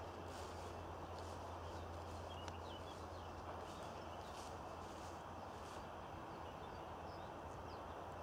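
Footsteps walking at a steady pace on a path, about one step every half second or so, stopping about six seconds in, with faint birds chirping now and then.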